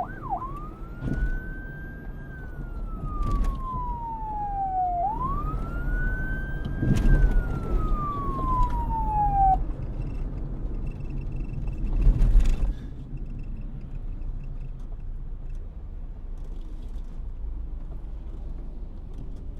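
Police car siren in its slow wail: the pitch rises and falls twice, then cuts off about ten seconds in, leaving low steady traffic noise. A loud noisy burst comes about twelve seconds in.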